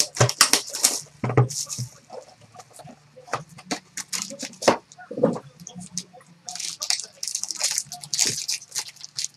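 Trading cards and their packaging being handled: a run of short, irregular rustles, clicks and scrapes.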